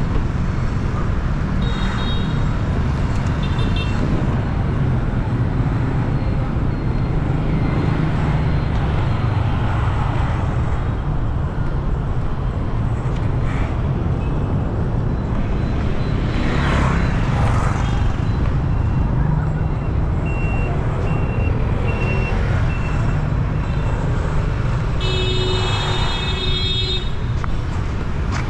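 Busy city street traffic: a steady rumble of passing engines, with brief horn toots now and then. There is a run of short high beeps about two-thirds of the way in, and a longer horn blast near the end.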